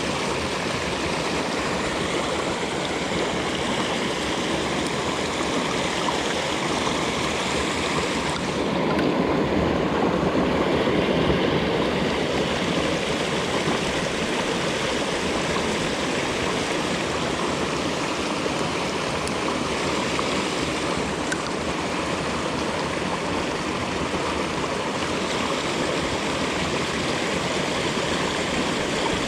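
Mountain stream water rushing steadily over rocks. About nine seconds in, the rush grows louder and fuller for a few seconds, then settles back.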